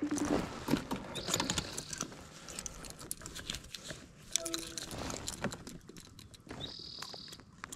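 Clicks, light metallic rattles and rustling from hands handling a bass in a rubber landing net and working fishing pliers to unhook a crankbait. A couple of short high tones sound about a second in and again near the end.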